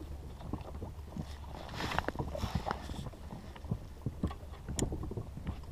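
Water slapping and lapping against a small dinghy's hull, with scattered light knocks and a steady low rumble of wind on the microphone.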